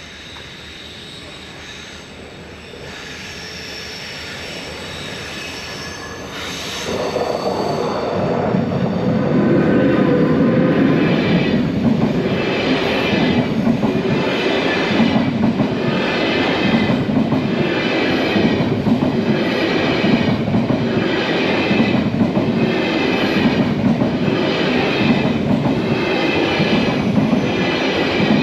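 A train passing close by. It grows louder over the first seven seconds with a thin, high wheel squeal, then rolls past loudly with a regular clatter about once a second.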